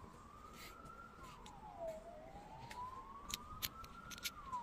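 Faint emergency-vehicle siren wailing: its pitch climbs slowly and drops quickly, about twice. A few light clicks in the second half.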